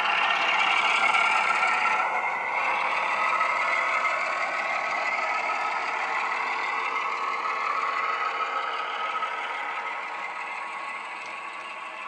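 ESU LokSound class 08 shunter sound file, a recording of the English Electric six-cylinder diesel, running through a model locomotive's small speaker as the locomotive passes, mixed with the clatter of model wagon wheels on the track. The engine note shifts about two seconds in and then slowly fades as the train draws away.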